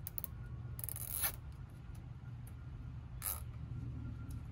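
A nylon zip tie being pulled tight around wire yard-sign stakes: two short ratcheting zips, about a second in and again near the end, with a few small ticks between them.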